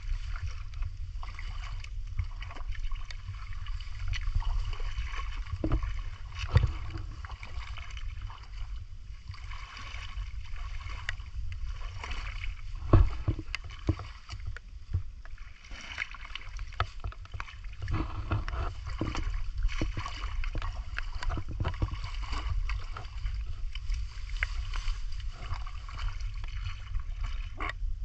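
Water splashing and sloshing around legs wading through shallow muddy swamp water, over a steady low rumble. A few sharp knocks come through, the loudest about halfway.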